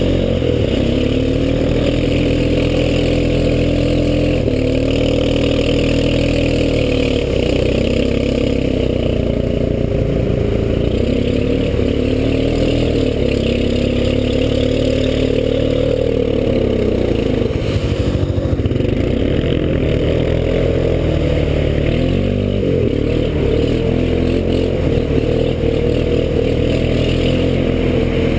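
ATV engine running hard, its pitch rising and falling again and again as the throttle is opened and eased off, over a steady low rumble.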